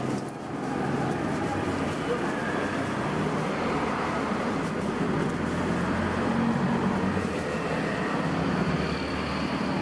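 Steady street background noise: passing traffic and a low murmur of distant voices.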